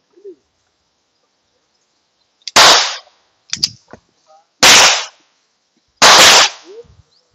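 Three pistol shots: the first about two and a half seconds in, then two more roughly two seconds and a second and a half apart, each trailing off in a short echo.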